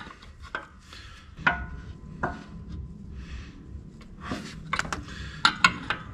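A 1-1/8 inch open-end wrench clicking and knocking against the hex of a frost-plug block heater as it is worked tight into the engine block. Single sharp metal knocks come about a second and a half in and just after two seconds, then a quicker cluster near the end.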